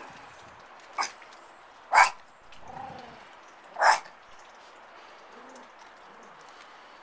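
Yorkshire terrier barking three times, short sharp barks spread over about three seconds, the last two louder, with a softer, drawn-out sound between the second and third.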